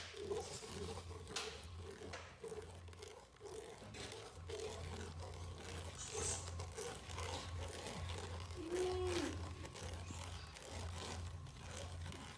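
A metal spoon stirring and scraping in a bowl of thick açaí pulp, with faint scattered clicks against the bowl.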